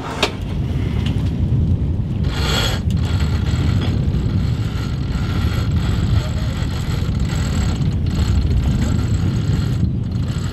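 Steady low rush of wind and water on a sailing yacht under sail, with occasional mechanical clicks and rattles from the deck gear.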